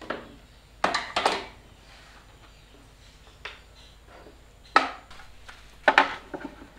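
Wooden blocks and a quick-release bar clamp set down and shifted on a table saw's metal table: several separate knocks and clatters, the loudest about a second in, just before five seconds, and around six seconds.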